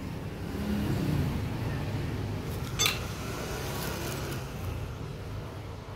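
Steady low background hum with one sharp metallic click about three seconds in, as the pinion housing of a rack-and-pinion steering gear is handled and seated on the rack.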